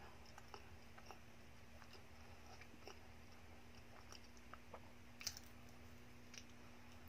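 Faint close-up mouth sounds of a person chewing a soft chocolate-glazed doughnut: scattered small wet clicks and smacks, the sharpest about five seconds in, and another bite into the doughnut near the end.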